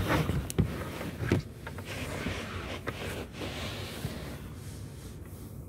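Rustling and handling noise from a phone held close against bodies and clothing, with a few sharp knocks in the first second and a half.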